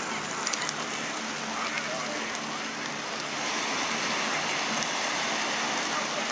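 Large bonfire burning: a steady crackling hiss with a few sharp snaps scattered through it.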